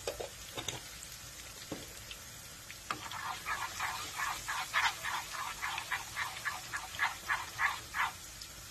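A spoon stirring garlic and coriander as they fry in oil in a frying pan. From about three seconds in it gives quick, even scraping strokes at about three to four a second, over a faint sizzle.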